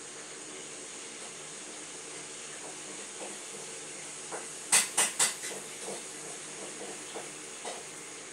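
Steady hiss of background noise with a faint low hum; about halfway through, three sharp clicks in quick succession, then a few soft, scattered taps, like small objects being handled on a desk.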